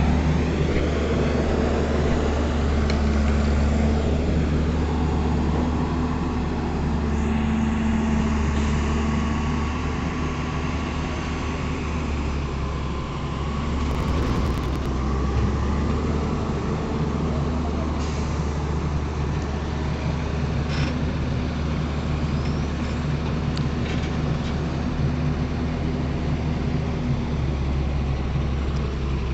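Tata Hitachi excavator's diesel engine running steadily with a low hum, with a few faint clicks and knocks over it.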